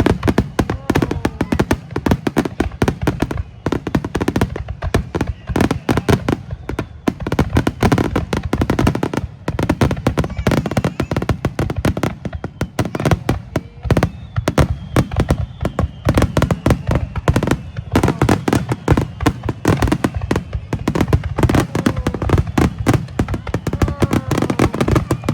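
A fireworks barrage: dense, rapid bangs and crackles, many bursts a second without a break.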